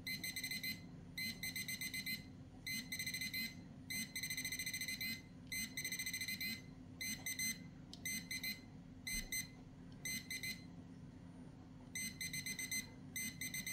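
Parkside pinpointer metal detector beeping in rapid, high-pitched bursts as its tip is passed over a coin and pulled away again, going silent between passes: its alert for detected metal during a response-speed test.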